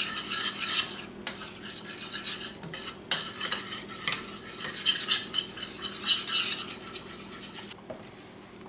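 A utensil stirring heavy cream into a white-wine and peppercorn pan sauce in a frying pan, scraping against the pan in strokes about once a second, easing off near the end.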